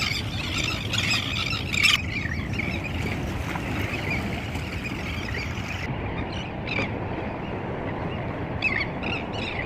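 Seabirds on the breakwater rocks squawking, over a steady wash of wind and water. Clusters of short calls come early and again from a little past the middle to the end.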